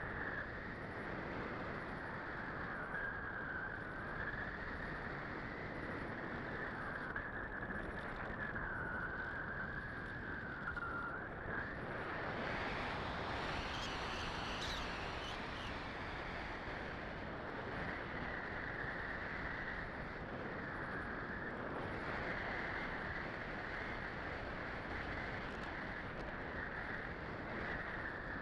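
Electric motor and propeller of a small FPV radio-control aircraft, heard through the onboard Mobius action camera's microphone: a steady buzzing drone mixed with wind rush, its pitch wavering with the throttle. About twelve seconds in it grows brighter for a few seconds, with a rising whine.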